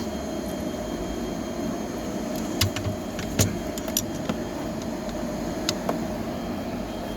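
A few sharp clicks and taps of a hand tool working at the Torx screws of a turn-signal/hazard switch on a steering column, over a steady hum.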